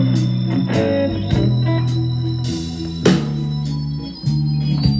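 Recorded music with long held chords and a few drum hits, played back through Nuance loudspeakers with 8-inch drivers and heard in the room.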